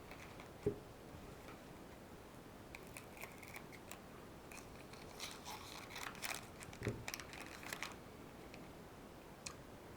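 Trading cards being handled and sorted: quiet sliding and rustling of cards, with a soft knock about a second in and another about seven seconds in.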